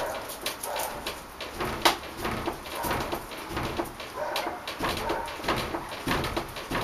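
Quick, hard breathing with short grunts in a fast rhythm from a man doing rapid short pull-ups, mixed with small clicks and a sharp knock about two seconds in.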